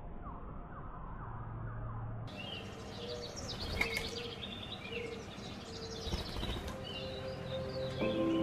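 Birds chirping and calling outdoors over a low background hum, many short quick chirps, muffled at first and clearer after about two seconds. Soft music with held notes comes in near the end.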